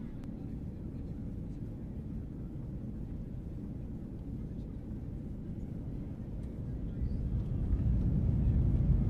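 Airliner cabin rumble, a steady low noise from the jet engines. It grows markedly louder from about seven seconds in as the engines spool up for takeoff.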